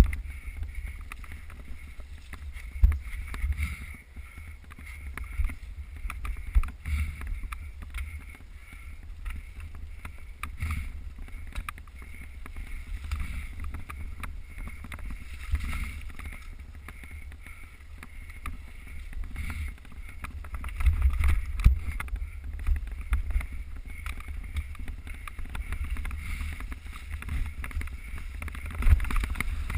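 Mountain bike riding over a dirt trail, filmed on a GoPro: low wind buffeting and rumble, with scattered knocks and rattles from bumps.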